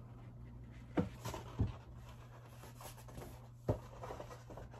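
Large rolled paper posters being unrolled and handled: quiet crackling of the stiff sheets, with three soft knocks about a second in, half a second later and near the end.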